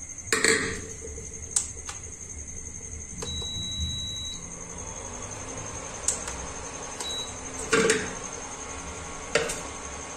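Induction cooktop's control panel beeping: one beep about a second long a little after three seconds, and a short beep about seven seconds in. Several knocks of a metal pot handled on the glass cooktop come between them, the loudest near eight seconds.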